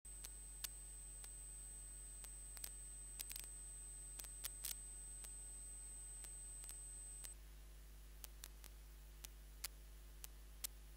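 Faint steady electrical hum with a thin high whine that stops about seven seconds in, broken by scattered sharp clicks at irregular intervals.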